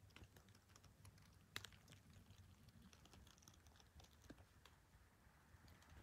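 Near silence with faint, scattered small clicks and crackles, one a little louder about one and a half seconds in.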